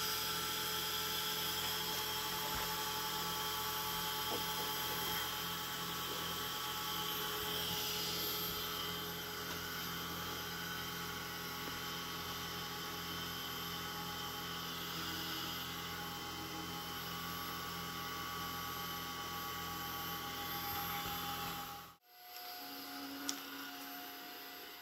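Electric gyro of a Sfena artificial horizon spinning, a steady whine made of several held pitches. It cuts off abruptly near the end.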